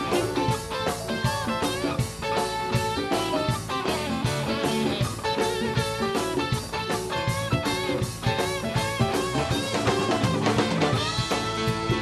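Live rock band playing: electric guitars over a drum kit keeping a steady beat, with keyboards.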